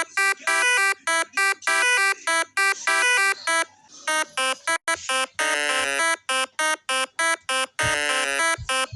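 Electronic buzzy melody of short notes, about four a second, with a few longer, fuller notes in the second half.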